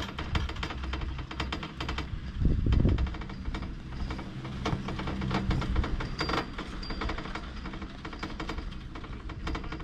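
Poma double chairlift running: rapid clicking and clattering of the haul rope passing over sheave wheels, over a low rumble, with a heavier low thump about two and a half seconds in.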